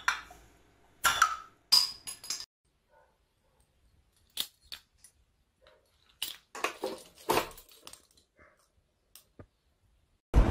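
Metal clanks and clinks: a loud cluster about a second in, one with a short metallic ring, from iron plates knocking on a dumbbell. From about four seconds in, keys jangle and their jack plugs click into a Marshall jack-plug key holder, softer and scattered.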